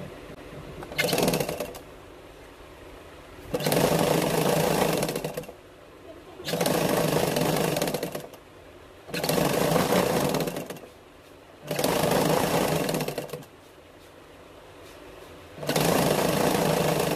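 Motorised sewing machine stitching cloth in six separate runs, the first brief and the rest about one and a half to two seconds each, with short pauses between.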